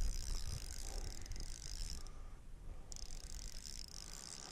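Fixed-spool fishing reel being wound in to take up slack after casting a feeder rig. The winding stops about two seconds in and starts again about a second later.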